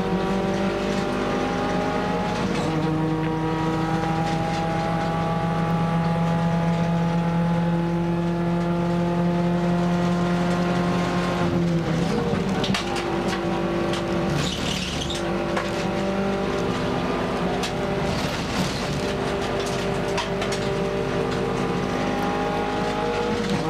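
Nissan March race car's engine heard from inside the cabin, running hard with its pitch slowly climbing, falling sharply about halfway through, then climbing again. Brief tyre squeal a little after the midpoint.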